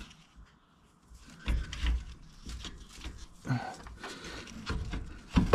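Irregular light knocks and clicks of metal parts being handled: the BMW F90 M5's rear brake caliper being worked back into place over new pads after its piston was compressed.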